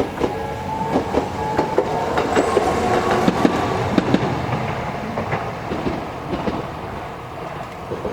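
A Toden Arakawa Line tram passes over the level crossing, its wheels clicking sharply over the rail joints and crossing, with a slowly rising motor whine in the first few seconds. The crossing's repeating alarm tone fades near the start.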